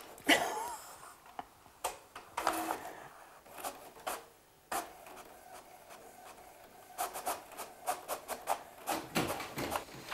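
A few clicks from a computer keyboard and mouse, then an HP inkjet printer running: a steady hum starts suddenly about halfway through, followed by a quick series of mechanical clicks near the end as it prints a page.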